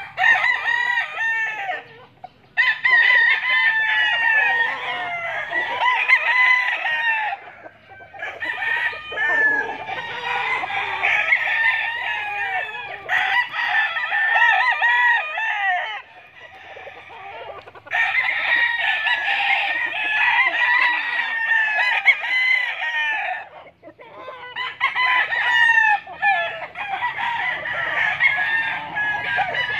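Several gamecocks crowing over one another in long overlapping bouts, broken by short lulls.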